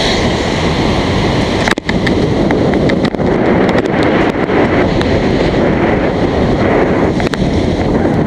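Wind buffeting the microphone of a bike-mounted action camera while riding, a steady loud rushing that breaks off briefly about two seconds in.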